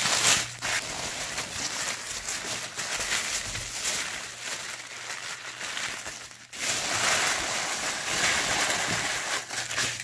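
White tissue paper rustling and crinkling as hands pull and unwrap it from around a small box, with a brief lull about two-thirds of the way through.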